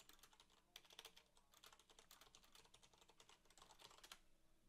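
Faint computer keyboard typing: a run of quick, irregular key clicks that stops about four seconds in.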